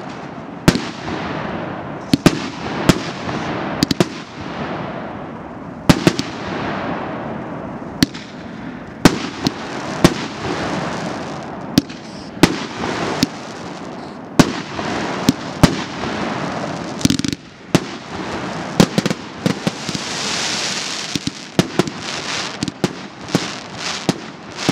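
Multi-shot consumer fireworks cake (the C9011 Imperatorsky) firing: irregular sharp bangs of shots and bursting shells over a continuous crackling hiss. The bangs come faster over the last several seconds.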